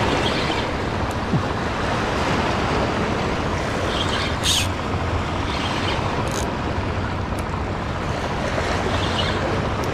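Steady wind noise on the microphone over water sloshing against a seawall, with two short splashy hisses about four and a half and six seconds in, as a hooked fish thrashes at the surface.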